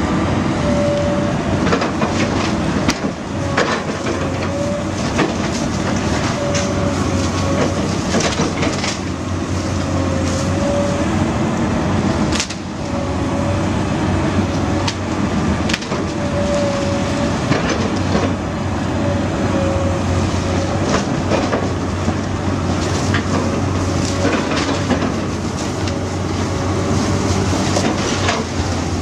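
Komatsu PC200LC hydraulic excavator running with a steady diesel hum as its bucket tears into a wooden house, with frequent cracks and crashes of breaking wood and falling debris. A short whine comes and goes every second or two.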